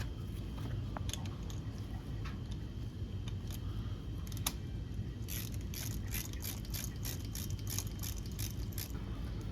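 Ratchet wrench clicking as a spark plug is turned out of the engine: a few scattered clicks, then from about halfway through a quick even run of about five clicks a second.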